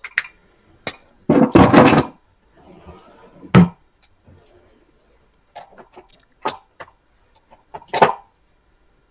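A few knocks and clatters of small objects being picked up and set down on a desk. The loudest is a clatter lasting under a second, about a second and a half in, followed by single sharp knocks.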